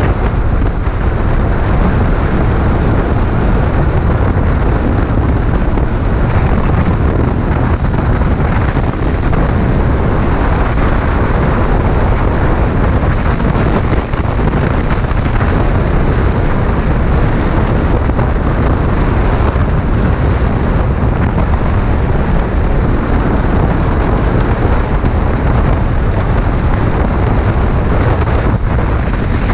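Motron Revolver 125 motorcycle being ridden, with a steady loud wind rumble buffeting the microphone over the road and engine noise.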